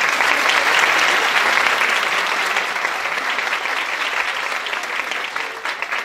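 Audience applauding: many people clapping, loudest about a second in and then slowly tapering off.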